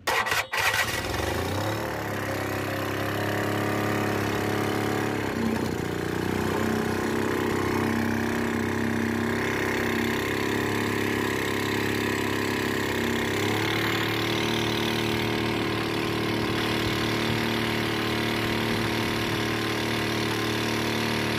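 Small air-cooled engine of a long-tail boat drive starting up about half a second in. It then runs steadily under way, changing speed around five seconds in and again near the middle, with water rushing along the hull.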